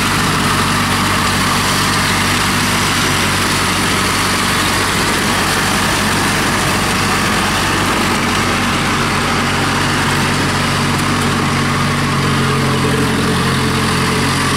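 Engine of a small tracked rice-hauling tractor running steadily as the tractor drives slowly past on its tracks.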